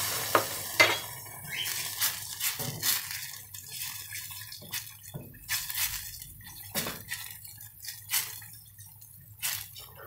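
A wooden spoon stirring a thin tomato-paste and mint sauce in a stainless-steel saucepan, knocking against the pan's sides and bottom every second or so. A hiss at the start dies away within the first second.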